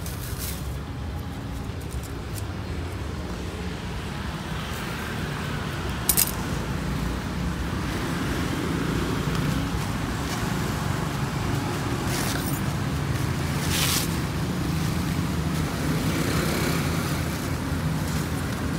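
A motor vehicle engine running steadily, getting a little louder after a few seconds, with a sharp click about six seconds in and two short hisses later on.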